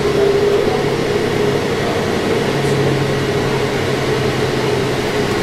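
Inside a 2012 New Flyer Xcelsior XD40 diesel transit bus under way: steady running drone of the engine and drivetrain with road noise, and a whine that holds near one pitch and sags slightly.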